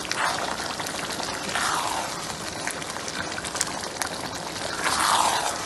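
Jollof rice simmering in tomato broth in a non-stick pot, bubbling and popping steadily. A spatula stirs through the wet rice in three swishing strokes: one at the start, one about two seconds in, and the loudest near the end.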